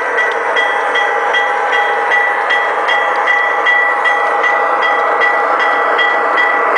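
MTH RailKing garden-scale model diesel locomotive running steadily along the track, with a steady whine and a regular clicking about three times a second as its wheels cross the rail joints.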